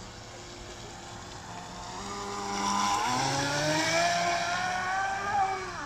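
An electric RC speedboat running flat out on 6S LiPos: its motor whine grows louder about two seconds in and climbs slowly in pitch, then drops in pitch and fades just before the end as the boat passes. A hiss of spray rides over it.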